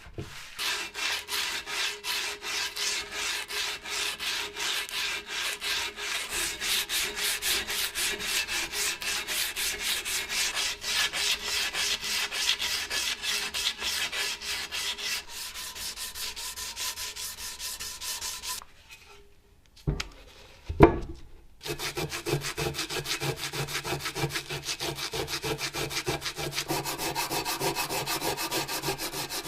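Rapid back-and-forth abrasive strokes of hand sanding, about four a second. They stop for a few seconds partway through, when there are two short knocks, then start again.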